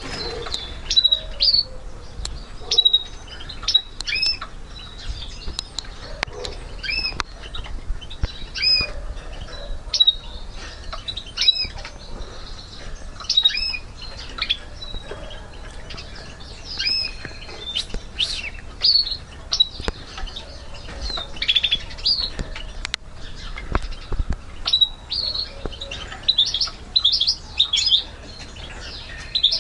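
Caged goldfinch mule (a goldfinch–canary hybrid) calling in short, high, sweeping chirps about once or twice a second, with a few sharp clicks between them. The notes come faster and closer together near the end.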